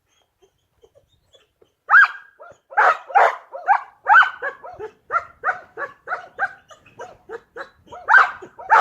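Trained protection dog barking in a fast run of about three barks a second, starting about two seconds in after a near-silent start: guard barking at a man being searched.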